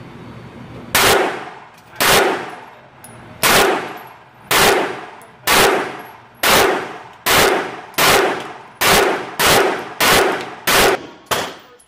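Semi-automatic pistol fired in a steady string of about thirteen shots, roughly a second apart at first and quickening to about every half second near the end. Each loud crack echoes off the walls of an indoor shooting range.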